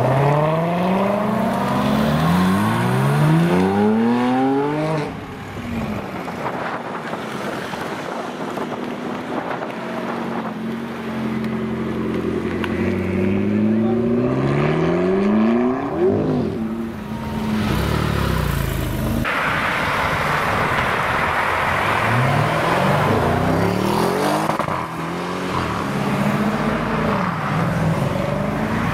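Sports cars accelerating hard away one after another, each engine note climbing in pitch and dropping at gear changes. First the Chevrolet Corvette C7 Stingray's V8 pulls away through several upshifts, then about halfway through a McLaren's twin-turbo V8 accelerates. A later car revs up near the end, and a steady engine tone follows.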